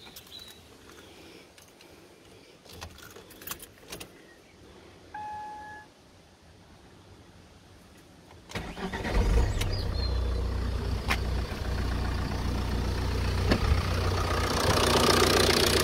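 Small clicks and a short electronic beep, then the Ford Mondeo Mk4's 1.8 TDCi four-cylinder diesel engine starts about eight and a half seconds in. It settles into a steady idle that grows louder and brighter near the end, heard close to the open bonnet.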